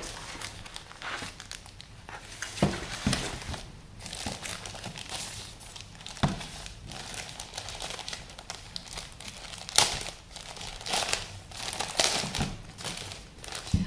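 Crinkling and rustling of a drone's white protective wrap being handled and unwrapped, in irregular bursts with a few sharper crackles, loudest about ten seconds in.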